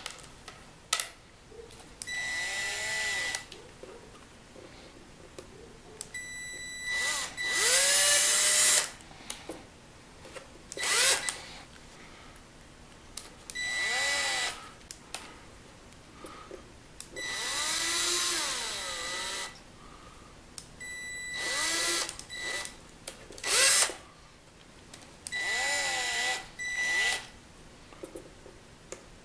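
Milwaukee cordless drill boring small holes into a wooden board in about ten short runs of a second or two each, with pauses between them. The motor's whine rises and falls in pitch within each run as the bit bites.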